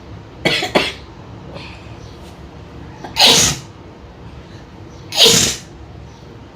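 A woman sneezes twice, loudly, about two seconds apart, after two short sharp sounds near the start. The sneezes are brought on by tickling the nose with cotton.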